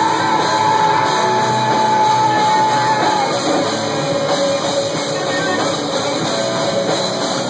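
Live rock band playing: electric guitar, bass guitar and drum kit, with one high held note that stops about three seconds in.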